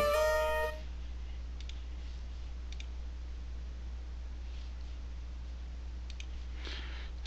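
Windows system alert chime as an Excel 'save changes?' dialog box pops up: one short, bright ringing tone, under a second long. It is followed by a few faint mouse clicks over a steady low hum.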